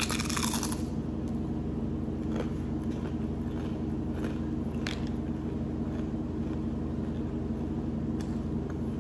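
Bite into a crisp homemade fried tortilla chip, a crunch at the start, followed by a few faint scattered crunches of chewing. A steady low hum runs underneath.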